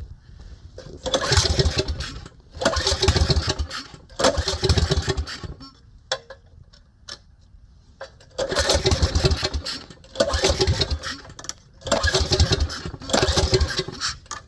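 Briggs & Stratton single-cylinder engine on a mini bike revved in repeated short bursts of about a second, dropping back low between them, with a longer lull in the middle. It is running after a by-hand carburetor adjustment, and the owner judges that it needs a new carburetor.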